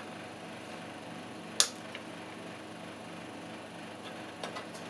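A single sharp click about a second and a half in, then a few faint ticks near the end, from hands working on computer parts, over a low steady hum.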